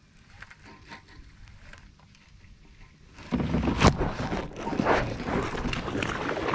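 Faint ticks of a baitcasting reel being cranked, then about three seconds in a sudden loud rush of rod-and-body movement as the hook is set, with a sharp hit near four seconds and a hooked bass splashing at the surface near the end.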